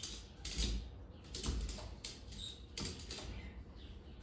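Strap of a furniture-moving dolly being pulled snug against a vending machine: irregular metallic clicks and knocks from the strap hardware, with dull low thumps as the dolly shifts.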